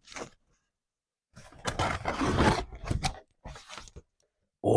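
Paper or cardboard packaging being handled while a box is opened: a stretch of rustling and scraping with small clicks about a second and a half in, then a few lighter rustles. A man's surprised exclamation starts right at the end.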